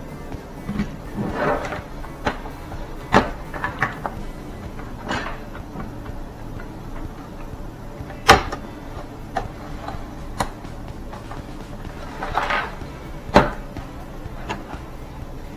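Light plastic clicks, taps and short scrapes from handling tablet parts and plastic pry tools on a work surface. Scattered single knocks, the loudest about eight seconds in, with brief scraping near the start and near the end.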